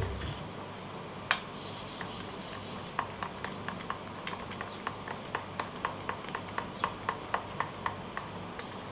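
Metal spoon clinking against a bowl while stirring thick besan (gram-flour) batter. One click comes just over a second in, then from about three seconds in a steady run of light clinks, about three a second.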